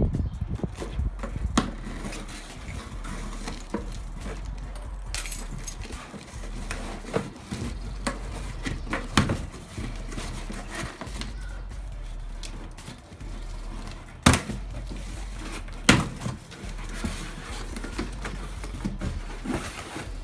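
Cardboard shipping box being cut open with a key and its flaps pulled back: scraping, rustling cardboard and a string of sharp knocks, two of them louder past the middle.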